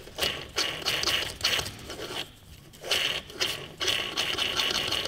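Peugeot Speedfight 2 scooter crankshaft main ball bearing being turned and wiggled by hand, a dry scraping rustle, first in short uneven strokes and then as a steadier hiss from about three seconds in. The bearing has a slight play in it.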